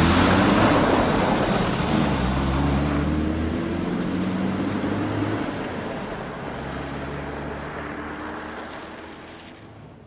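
Car engine running and accelerating away, its pitch sliding up and down with the revs, the sound steadily fading out.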